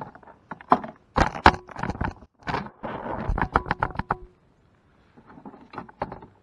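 Sharp knocks, clicks and rattling on a plastic fishing kayak as a small crappie is handled. The knocks come first, then a denser scraping rattle about halfway through, and a few more knocks near the end.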